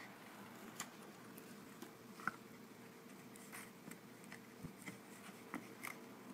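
Faint handling sounds: scattered light clicks and taps as fingers press and adjust a block magnet on a small wooden base, over a faint steady hum.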